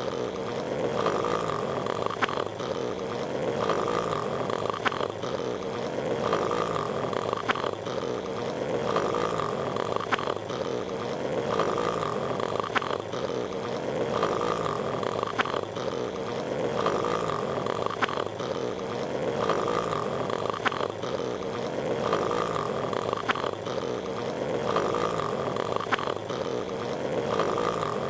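Patrick Star's cartoon snoring sound effect, looped: rhythmic rasping snores repeating every couple of seconds.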